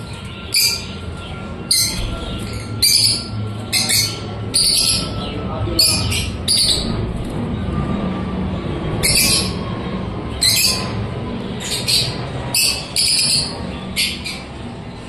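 Lutino Fischer's lovebirds calling: short, sharp, shrill chirps repeated irregularly, about one or two a second, over a steady low hum.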